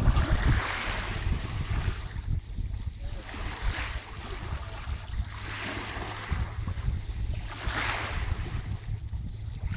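Lake Baikal's waves washing in, swelling and falling every couple of seconds, with wind buffeting the microphone as a low rumble.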